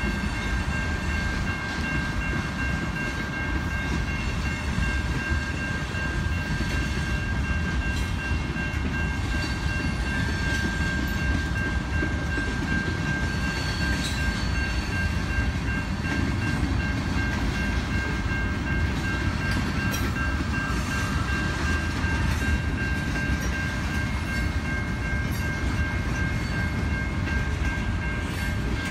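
Freight train of tank cars and covered hoppers rolling steadily past: a continuous low rumble of wheels on rail with scattered faint clicks, and a steady high-pitched whine held throughout.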